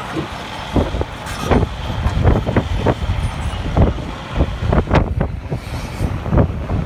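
Wind buffeting the microphone in irregular gusts over a continuous low engine rumble.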